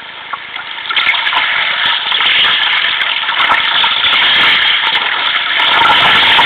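Choppy sea water rushing and splashing against a moving sea kayak's hull, louder from about a second in.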